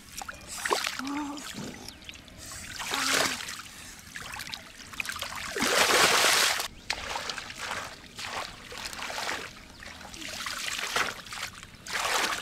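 Shallow muddy water splashing and dribbling in uneven bursts as it is churned by hand, the longest and loudest splash about six seconds in.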